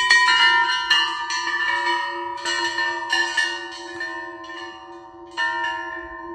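Large hanging metal bells struck by hand one after another, about ten strikes, each leaving a long ringing tone that overlaps the others. The first strike is the loudest.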